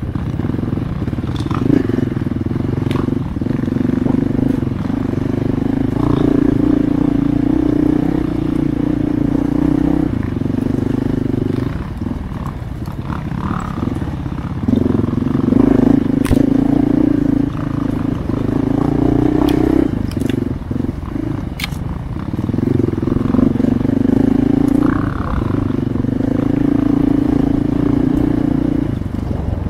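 Dirt bike engine ridden on a trail: the throttle opens in runs of a few seconds, with the engine note stepping up, then closes and opens again. Scattered sharp clicks and crackles run through it.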